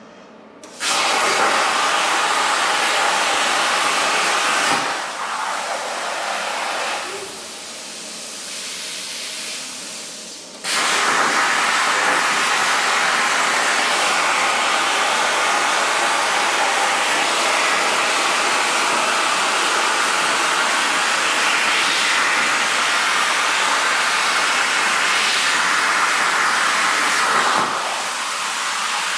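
CNC plasma torch cutting 16 gauge sheet steel at 40 amps: a loud, steady hiss of arc and air that starts abruptly about a second in. It falls to a quieter hiss for several seconds, then comes back at full strength about ten seconds in and carries on.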